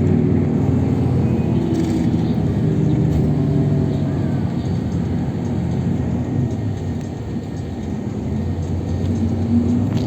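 Bus engine and road noise heard from inside the passenger cabin while the bus drives, a steady low rumble whose engine note shifts slightly.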